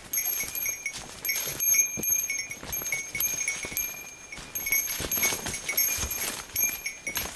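Footsteps crunching and rustling through dwarf bamboo grass and dry fallen leaves on a forest path, with a small metal bell jingling almost constantly in time with the walking.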